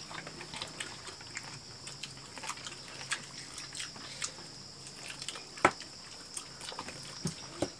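People eating fried chicken and rice with their hands: chewing, lip smacks and many small scattered clicks, with one sharper click about five and a half seconds in.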